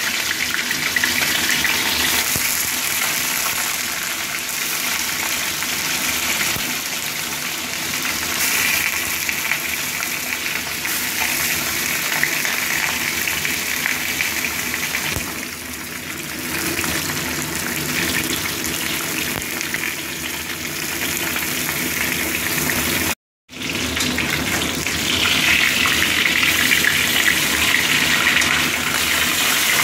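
Fish head and fish pieces frying in hot oil in a wok: a steady sizzling that breaks off completely for an instant a little over two-thirds of the way through.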